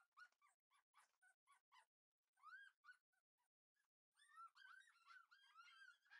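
Faint, high-pitched puppy whining: many short cries that rise and fall in pitch, coming in quick runs with a brief lull around the middle.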